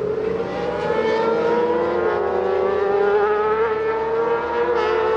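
Racing sidecar's engine running at high revs on the track, a steady high-pitched note that eases slightly down in pitch over the first couple of seconds and then holds.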